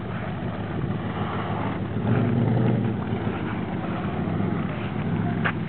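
Jeep CJ7's engine running steadily, briefly a little louder about two seconds in.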